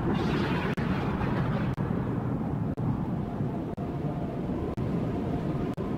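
Steady low wind rumble with no distinct events.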